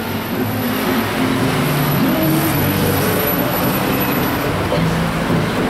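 Busy city street traffic: car and heavier vehicle engines running steadily at an intersection, with no break in the noise.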